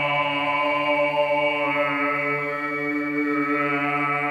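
A man's voice holding one long, steady low sung note, a chant-like drone that rings in the long reverberation of an empty water silo. Its vowel colour shifts about two seconds in while the pitch stays put.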